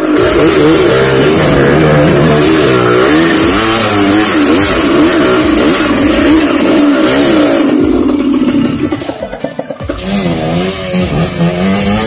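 Small trail motorcycle engines revving, the pitch rising and falling with the throttle over rough ground. The engine sound drops away about eight seconds in, and another bike's engine revs in about two seconds later.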